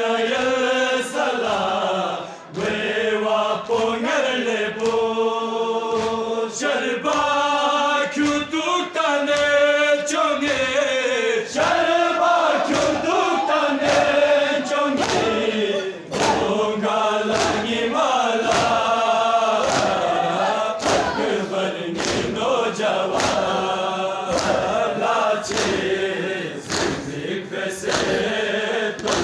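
Men's voices chanting a Balti noha, a Muharram lament, together in unison, with regular sharp slaps of hands beating on chests (matam) marking the beat.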